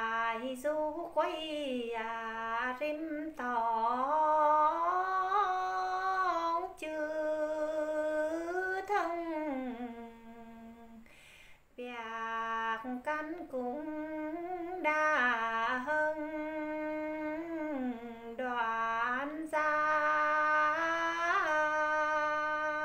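A woman singing a Tày phong slư unaccompanied: long held, wavering notes that slide between pitches, in two long phrases split by a breath pause about ten seconds in.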